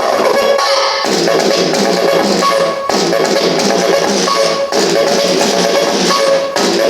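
Music with a steady drum beat played through the small speakers of a miniature sound-system truck, thin and with almost no deep bass.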